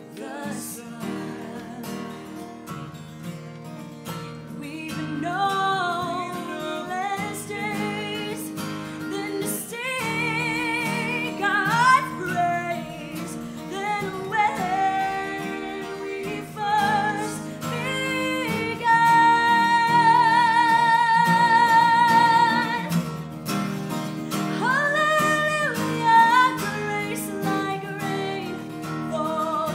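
A woman singing a worship song over strummed acoustic guitar. Her voice grows louder after the first third, and about two-thirds through she holds one long note with vibrato.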